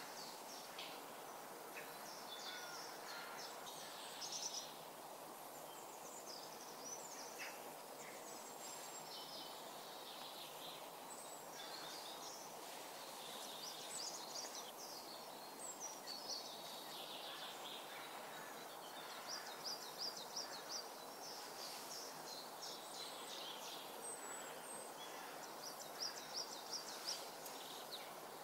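Faint outdoor ambience: a steady hiss with wild birds calling and singing now and then, including quick high trills about two-thirds of the way through and again near the end.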